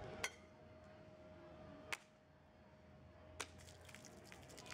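Three sharp slaps, about a second and a half apart and the first the loudest: a palm striking the mouth of a glass beer bottle part-filled with water, the blow meant to knock the bottle's bottom out.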